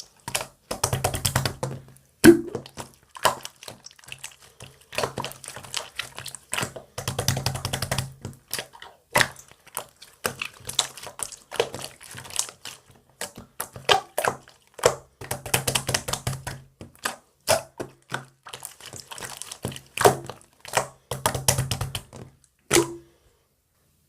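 Marbled slime being squeezed and pressed by hand: a dense run of sticky clicks and crackles, with short bursts of rapid crackling every second or two. It stops abruptly near the end.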